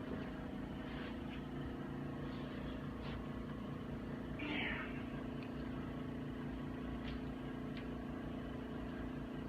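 A steady low hum made of several held tones, like a motor or fan running, with a few faint ticks and a brief soft rustle about halfway through.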